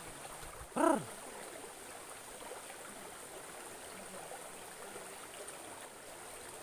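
Small muddy stream running steadily, an even rush of flowing water. About a second in, a person makes one short vocal sound that rises and falls in pitch.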